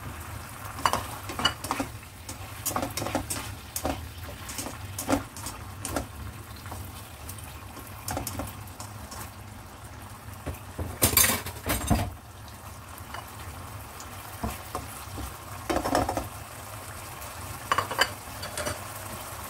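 A spatula stirring and scraping in a wok, clinking against its sides, over a steady simmer and light sizzle of sauce. A cluster of louder scrapes and knocks comes a little past halfway, with a few more near the end.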